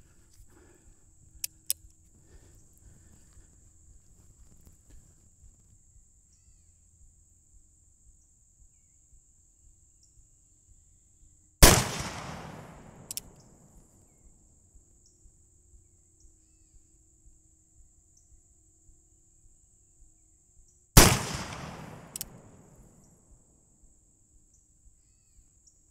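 Armi San Paolo 1860 Army Colt replica, a .44 cap-and-ball revolver loaded with black powder and round ball, fired twice, about nine seconds apart. Each shot is a sharp crack with a long echoing tail that dies away over about two seconds.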